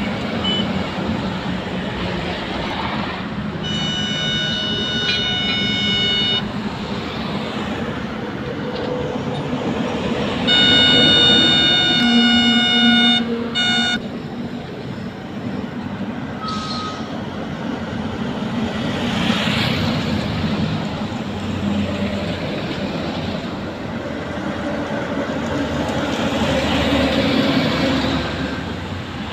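Heavy highway traffic, with lorries passing and a steady rush of tyres and engines. A vehicle horn sounds about four seconds in for a couple of seconds, then again, louder, from about ten to fourteen seconds in.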